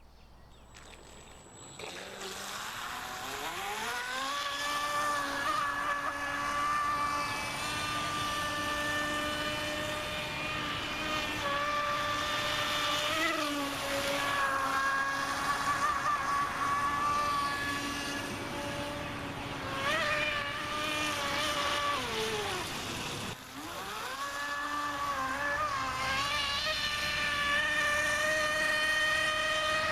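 Radio-controlled boat's brushless motor driving a Kyosho Dolphin outboard's flex shaft, whining steadily at speed with water noise underneath. The pitch dips briefly a few times, falls sharply as the throttle comes off about two-thirds of the way through, then rises again.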